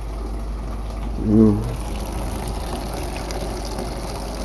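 Kitchen tap running steadily, its stream splashing over raw chicken drumsticks being rinsed in the sink. A man's voice makes one short sound about a second and a half in.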